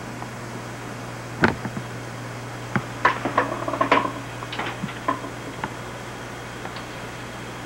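A few sharp clicks and knocks over a steady low electrical hum: one about one and a half seconds in, then a quick cluster with brief short tones around three to four seconds in.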